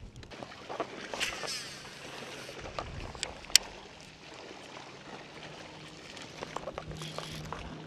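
Handling noises on a bass boat's front deck over a steady background of wind and water: a few sharp clicks and knocks, one about a second in and two close together about three and a half seconds in.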